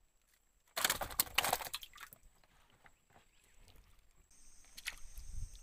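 A sudden burst of clattering, rustling noise about a second in that lasts about a second and trails off into scattered clicks, then insects start a steady high buzz about four seconds in.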